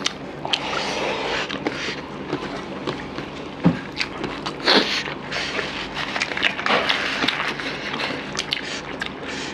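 Close-up eating sounds from people eating rice by hand: chewing and mouth noises, with fingers scraping rice across a steel plate and scattered sharp clicks.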